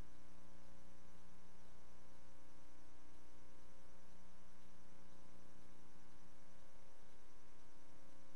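Steady electrical hum with a faint hiss, unchanging throughout, with no other sound.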